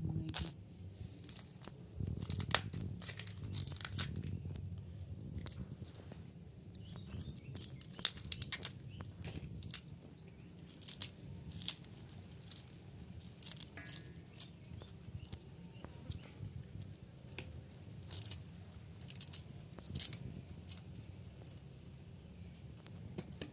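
Hands handling and tearing sliced torch ginger flower petals in a bowl: scattered crisp crackles and snaps, over a low steady hum.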